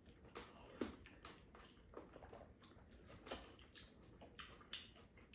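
Quiet eating sounds at a table: scattered soft clicks of spoons against a bowl and a frying pan, with slurping of soup and chewing.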